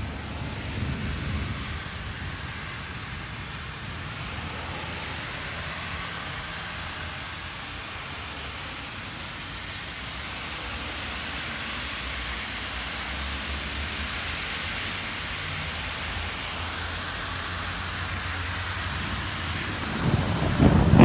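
Steady hiss of rain in a thunderstorm over a low, even rumble. Near the end, louder low rumbling starts.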